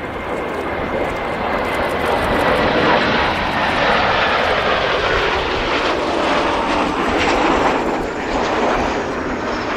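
Kawasaki T-4 jet of the Blue Impulse team passing, its engine roar swelling and then easing off, with a whine that falls in pitch as it goes by.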